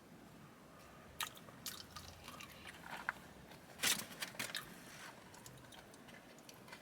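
Faint, scattered crinkles and clicks of fry packaging and a ketchup packet being handled as ketchup is squeezed onto French fries, the loudest click about four seconds in.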